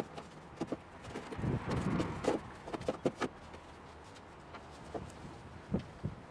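Light clicks and knocks of hand tools and parts being handled on the front of an open engine bay, scattered irregularly, with a stretch of rustling and shuffling about two seconds in.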